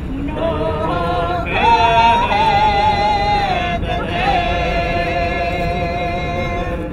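A small group of Buryat folk singers, a woman and men, singing a slow traditional song with long held notes.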